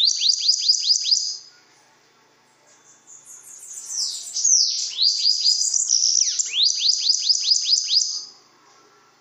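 Bananaquit singing: two bouts of its high, hurried song of quickly repeated downward-slurred notes, with a high buzzy trill opening the second bout. The first bout stops about a second in; the second runs from about three to eight seconds in.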